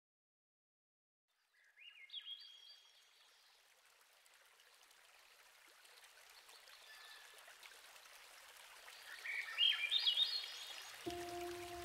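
Flowing river water, fading in after a moment of silence, with a small songbird singing two short phrases of quick stepped notes, one about two seconds in and one near the end.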